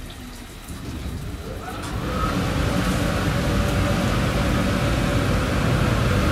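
Automatic gantry car wash machine running. About two seconds in, a short rising whine leads into a louder, steady rushing hum.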